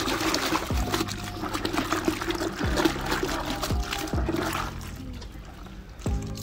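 Splashing and sloshing in a bucket of soapy wash water as a chenille microfiber wash mitt is swished and rinsed in it, with hose water pouring in. The splashing eases off about five seconds in as the mitt is lifted out.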